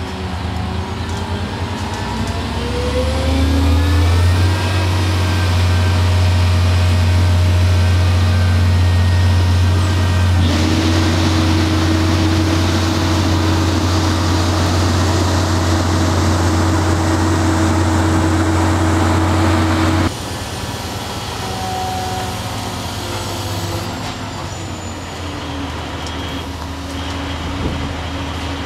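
Diesel engine of a truck-mounted crane running under load while hoisting a stadium light pole. It rises in pitch and gets louder a few seconds in. The sound changes abruptly about ten and again about twenty seconds in.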